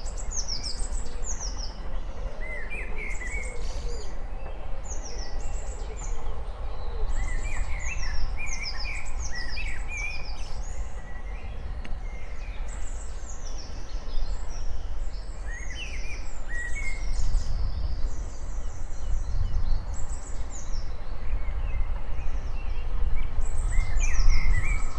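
Birds singing, with quick high falling song phrases repeated over and over. In the last third a low rumble builds as a steam locomotive hauling a train comes closer, loudest near the end.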